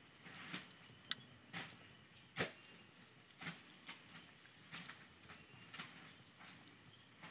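Faint, steady high-pitched insect buzzing, with a scattered handful of soft clicks and taps, the loudest about two and a half seconds in.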